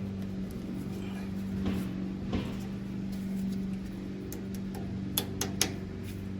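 Light metallic clicks of a cotter pin being pushed into its hole in the PTO lever linkage: one click about two seconds in, then three quick clicks near the end, over a steady background hum.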